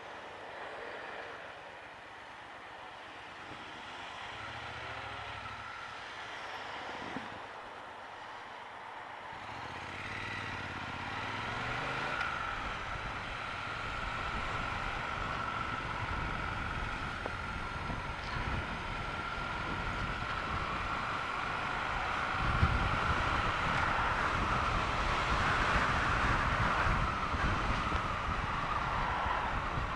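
Triumph Bonneville T120 motorcycle's 1200 cc parallel-twin engine, heard from a helmet camera. It runs low and quiet at first, then about ten seconds in the bike pulls away and accelerates, growing steadily louder with a steady whine over the engine and road noise.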